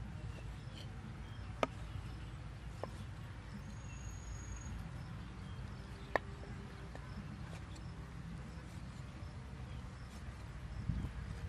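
Cleaver knocking on a wooden cutting board as meat is cut, with two sharp knocks standing out about a second and a half and six seconds in and a few lighter ticks, over a steady low rumble.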